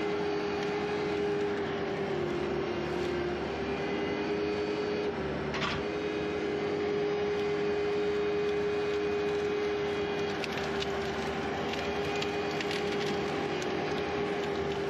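Skid steer engine running steadily with a strong constant hum whose pitch sags briefly a few times, and a short clatter about five and a half seconds in.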